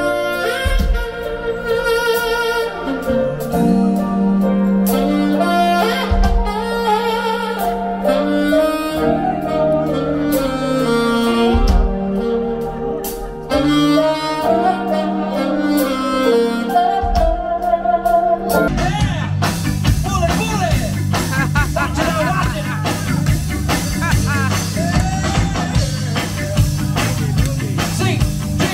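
Live band music with saxophone and a held bass line. About two-thirds of the way through it cuts suddenly to a different, busier full-band song.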